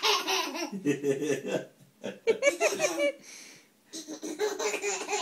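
A baby laughing in fits as a cat's tongue tickles its toes, with adults laughing along; the laughter comes in three bursts with a short lull a little past the middle.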